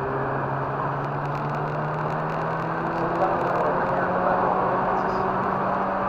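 Mazda RX-8's two-rotor rotary engine running at light throttle, its note rising slowly and steadily, over a steady haze of road and wind noise.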